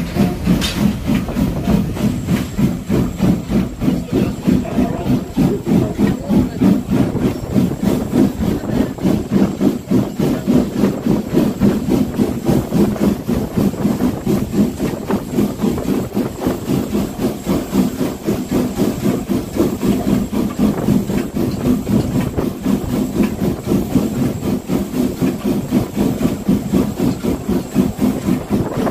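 Norfolk & Western No. 475, a 4-8-0 steam locomotive, working close by while hauling the train: a steady, fast rhythm of pulses with hiss, the locomotive's exhaust beats mixed with the rolling of the train.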